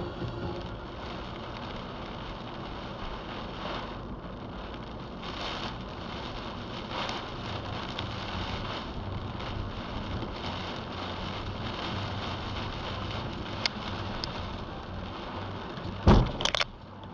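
Car driving through heavy rain on a flooded road, heard inside the cabin: a steady rush of rain and tyre spray over a low engine hum. Near the end comes one loud thump, followed quickly by two shorter knocks.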